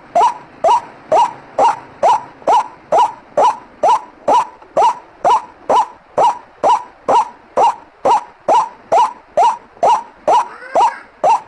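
White-breasted waterhen calling: a harsh 'ruak' note repeated steadily, a little more than twice a second, each note a short rising croak.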